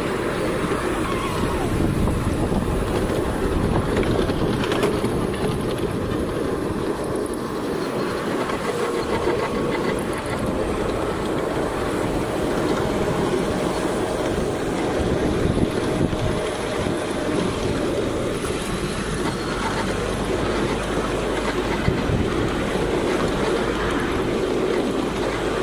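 Ride-on miniature railway train running along its narrow-gauge track: a steady rumble of the wheels on the rails, with a faint clickety-clack.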